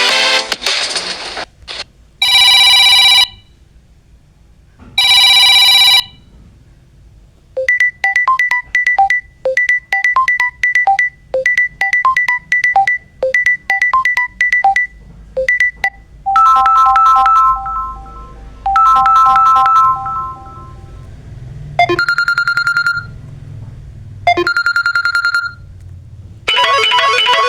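Samsung Galaxy A05s (One UI 7) ringtones and notification sounds played in turn: two short bright chimes, then a quick repeating melody of plucked electronic notes, then two longer chimes and two single pings, with a musical ringtone starting near the end.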